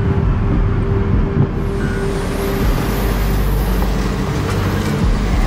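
Komatsu wheel loader's diesel engine running steadily as the machine works, a continuous low drone with a held tone over it.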